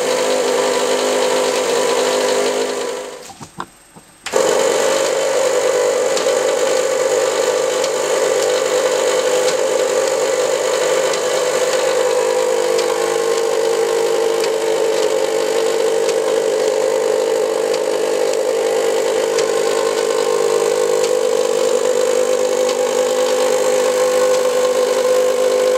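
Small electric motor of an Arduino-driven cigarette-tube feeder running with a steady hum. It drops out for about a second around three seconds in, then comes back.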